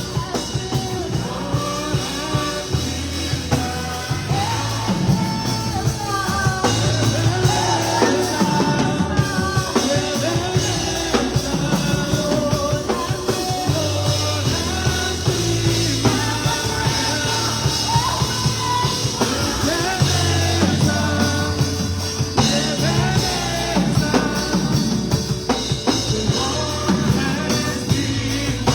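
A song with a singing voice over a band: drum kit keeping a steady beat and sustained bass notes, continuing without a break.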